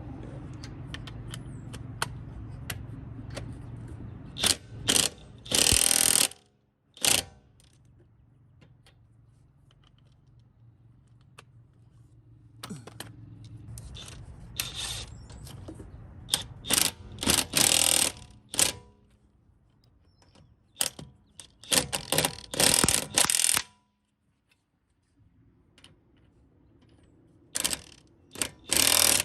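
Impact wrench running on wheel lug nuts in short bursts, in four groups spread through, with scattered clicks and taps in between.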